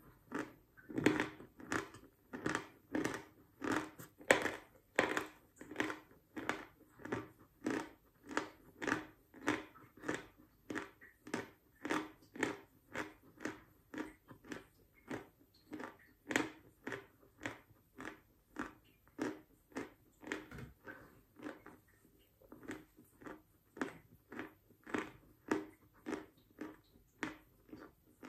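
A person chewing a mouthful of dry, medium-hard chalk, in steady chews about two a second.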